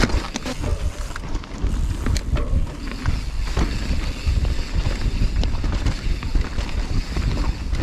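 Wind buffeting the microphone and tyres rolling over a dirt trail as a mountain bike descends at speed. A few sharp clicks and knocks sound over bumps.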